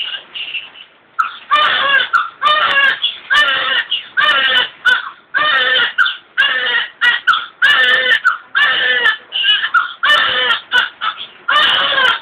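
Newborn baby crying: a long run of short, rising-then-falling wails, roughly one every three-quarters of a second, with a brief pause about a second in.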